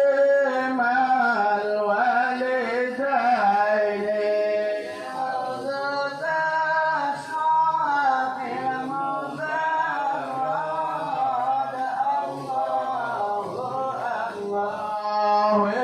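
A male voice singing an Arabic sholawat, a devotional song in praise of the Prophet, in long held, winding notes.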